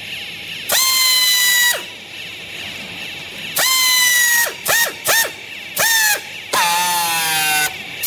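Pneumatic strapping tool whining in six short bursts, each rising in pitch as it starts and dropping as it stops, as it tensions and seals green plastic strap around a compressed bale of clothing; the last burst is longer and lower.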